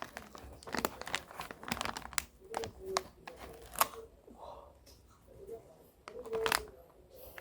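Packaging of a boxed graphics card being handled and torn open: irregular crinkling, tearing and sharp clicks, loudest a little under four seconds in and again about six and a half seconds in.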